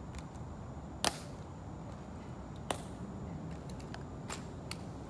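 Guards' metal-heeled dress shoes striking the stone plaza as they march to a halt: three sharp clicks about a second and a half apart, the first loudest, with a few fainter ticks between.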